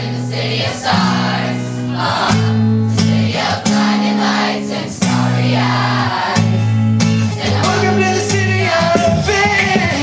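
A crowd of fans singing along in unison over strummed acoustic guitar chords, with higher voices rising near the end.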